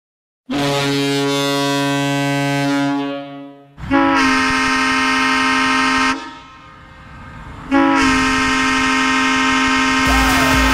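Ice hockey goal horn sounding three long, steady blasts with short breaks between them. A dance-music beat comes in near the end, under the third blast.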